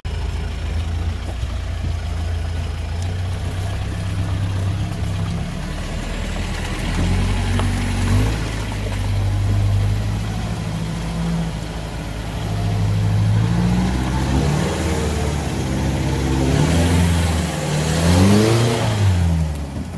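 2018 Mahindra Roxor's 2.5-litre turbodiesel engine running as it pulls through deep sandy ruts, then revving up and down several times over the last few seconds as it bogs down. The Roxor is stuck: with an open differential, once one tire stopped turning, the other only spun.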